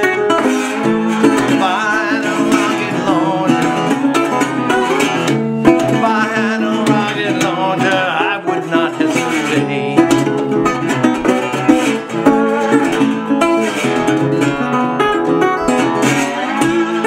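Acoustic guitar picked and strummed solo in an instrumental break of a song, with no words sung.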